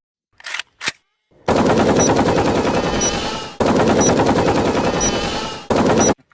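A meme sound clip: a loud, rapid rattling noise, starting about a second and a half in, cut into three stretches, with a short high beep about once a second from a quiz countdown timer.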